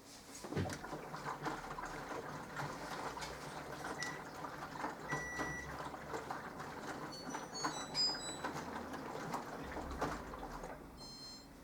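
Minicolo mini washing machine mid-wash: the drum turns with water sloshing and clicking, then stops near the end.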